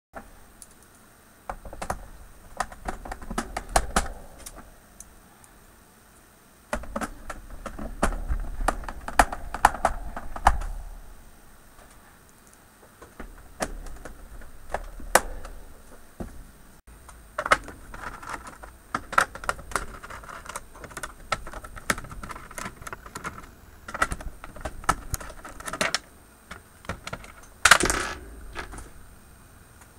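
Hands taking screws and a metal mounting plate off the plastic back of an LCD monitor: scattered sharp clicks, ticks and light metallic clinks with rubbing and handling noise, and a louder clatter near the end.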